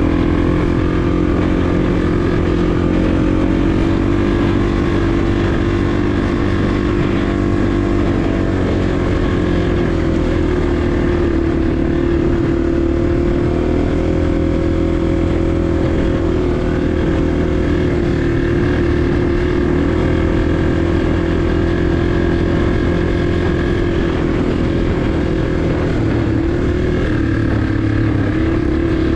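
250 cc four-stroke single-cylinder trail bike engine running steadily under the rider on a dirt track, its pitch shifting a little with the throttle.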